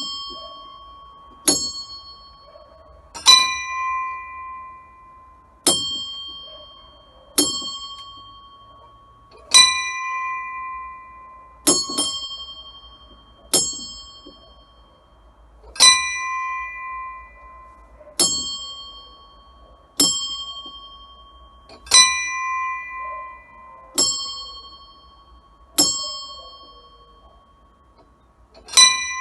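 Small bells of a home bell tower rung in a scampanio, struck in turn rather than swung: single strikes about every two seconds from bells of different pitch, each left to ring on. The bells are not very in tune.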